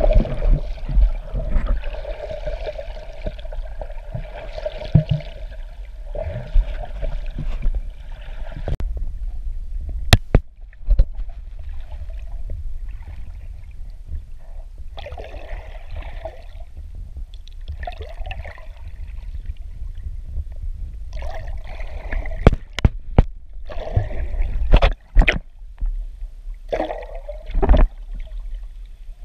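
Water gurgling and sloshing close to the microphone over a steady low rumble, broken by several sharp knocks.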